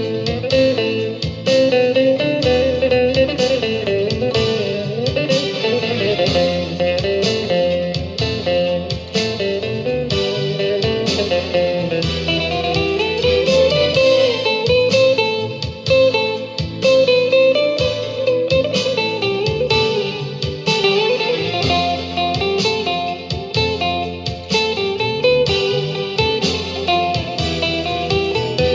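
Guitar music: a run of quick plucked notes carrying a moving melody, without singing.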